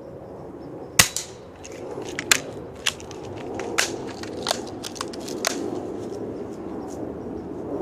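A BB gun shot cracks sharply about a second in. Several lighter, irregularly spaced sharp clicks and crunches follow over the next few seconds.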